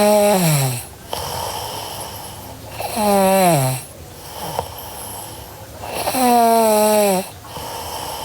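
A sleeping girl snoring in a steady rhythm: three snores about three seconds apart, each a loud tone falling in pitch over less than a second, with noisy breathing between them.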